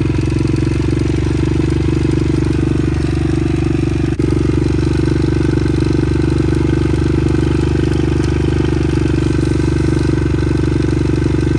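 Dirt bike engine running steadily in first gear, its rear wheel spinning free on a crate, with one short click about four seconds in.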